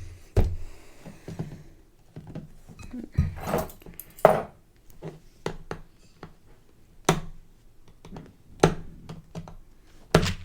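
Plastic Lego bricks clicking and clattering as pieces are handled, sorted and pressed together, in irregular sharp clicks with brief rummaging between them.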